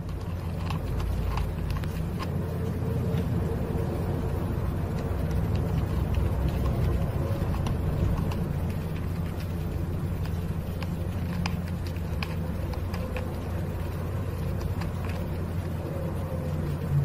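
Steady low rumbling hum with a few faint ticks over it.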